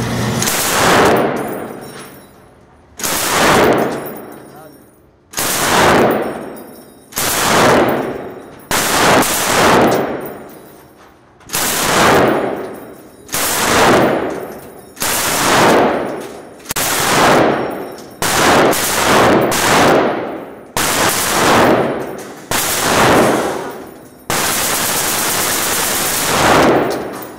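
A rifle fired over and over, about fifteen shots or short bursts spaced one to two seconds apart, each ringing on in the indoor range, then a longer continuous stretch of fire near the end.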